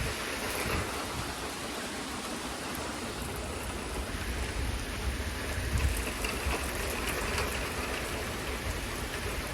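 Steady rain pouring down in a severe thunderstorm, with gusty wind rumbling low on the microphone.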